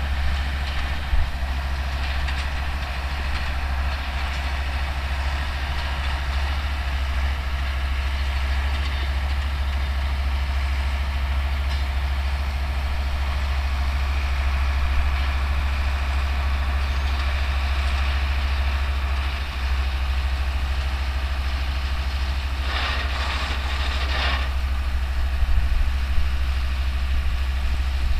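Older Deutz tractor's diesel engine running steadily while pulling and driving a New Holland Cropcutter 644 round baler, the baler's mechanism working along with it. Near the end a louder rasping noise lasts about two seconds.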